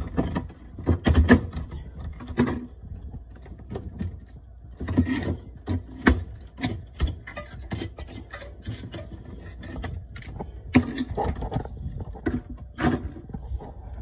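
Irregular scraping, knocks and clicks of ice being cleared by hand and with a scraper from the floor of a refrigerator freezer's evaporator compartment, around the defrost drain line where ice has built up. The knocks are loudest about a second in and again near the end.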